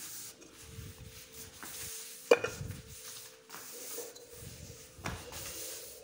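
Clay bird-nest pots being handled on a tiled floor: rubbing and scraping, with a sharp knock about two seconds in and a weaker one near five seconds. A faint steady hum runs underneath.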